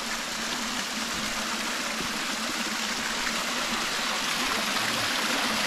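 Small forest waterfall: a thin stream of water trickling and splashing down a rocky gully in a steady rush, growing slightly louder.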